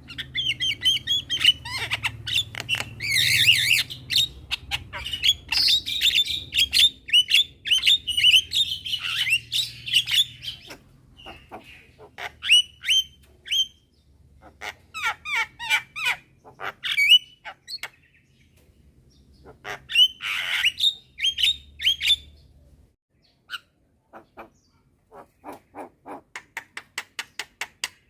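Javan mynas calling back and forth: a dense stretch of chirps, whistles and squawks, thinning to scattered calls. About three-quarters through there is one longer harsh call, and near the end a quick run of short, evenly spaced notes.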